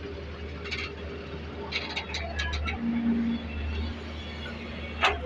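Doosan DX140 wheeled excavator's diesel engine running steadily, heard from inside the cab, with a few light clicks in the first few seconds and a single sharp knock about five seconds in.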